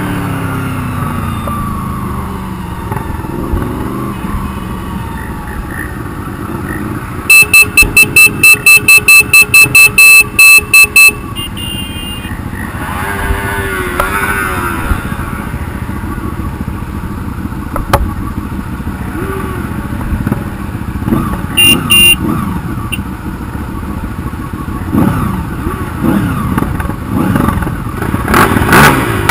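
Motorcycle engines running and revving as a group of bikes rides together. About a quarter of the way in, a horn beeps rapidly, about three or four times a second for several seconds, loud over the engines; two short horn blasts follow later.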